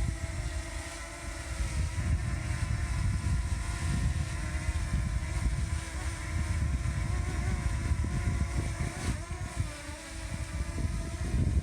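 Strong gusty wind buffeting the microphone, with a low rumble that swells and fades, over the steady multi-tone whine of a DJI Mini 2's propellers holding a hover, the whine's pitch wavering slightly as the motors hold against the gusts.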